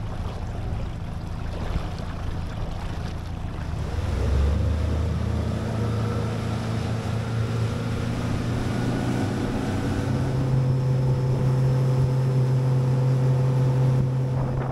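Bass boat outboard motor running under way, its pitch stepping up twice as the throttle opens, about four seconds in and again about ten seconds in. Wind buffets the microphone, and water rushes past the hull.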